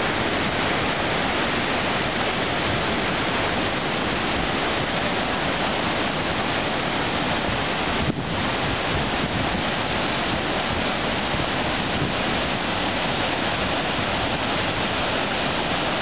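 Iguazu Falls: the loud, steady rush of a huge volume of falling water, with a momentary dip about halfway through.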